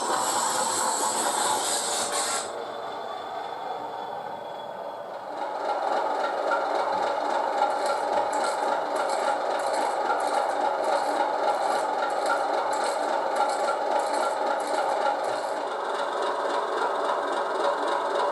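Class 30 diesel locomotive DCC sound file, built from a Mirrlees MB275T engine recording, playing. A loud hiss cuts off about two and a half seconds in. The engine sound then grows louder about five seconds in and runs steadily, with a pulsing hiss over it through the middle.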